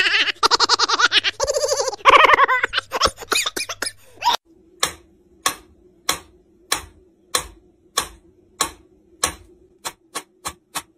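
Mechanical pendulum metronome ticking steadily, about one and a half ticks a second, through the second half. Before it, for about four seconds, a voice rises and falls in pitch.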